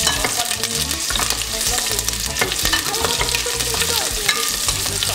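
Quartered onions dropped into hot olive oil in a stainless steel pot, sizzling and crackling as they start to fry, with many short clicks of spatter and pieces landing.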